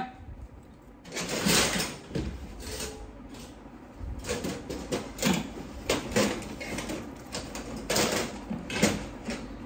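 Handling noise from a steel wire brush for an angle grinder being picked up and measured: a string of irregular short clicks, knocks and scrapes.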